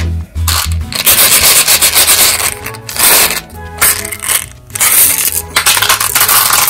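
M&M's candies rattling inside a hollow plastic surprise egg and spilling out as it is opened. The sound comes in several loud, gritty pours with short breaks between them, over faint background music.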